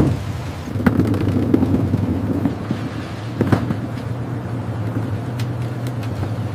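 An engine running steadily, with several sharp knocks over it: one about a second in and a louder one about three and a half seconds in.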